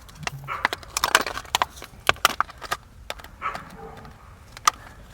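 Irregular clicks and short scrapes of hand tools working on electrical wire: a knife on wire insulation and handling of crimp terminals.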